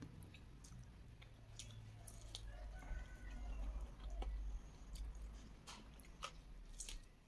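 A person chewing and biting into a piece of KFC fried chicken, with scattered short clicks throughout and a low rumble for a second or two around the middle.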